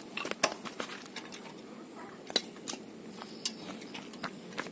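Irregular sharp clicks and light taps of hand work on a motorcycle exhaust as it is fitted, over a steady low background noise.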